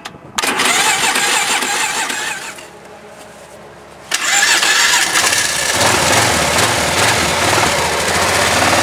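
Engine of a 1996 Polaris Magnum 425 ATV, a single-cylinder four-stroke, coming in suddenly about four seconds in and running, settling into an even idle over the last few seconds. Before it there are a couple of seconds of mixed noise and then a quieter spell.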